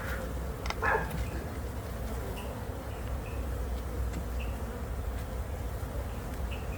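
Honeybees buzzing steadily around an open hive, with a couple of short knocks about a second in.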